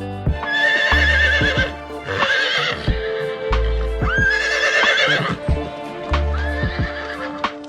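Horse whinnying four times, each call about a second long with a quavering pitch, over background music.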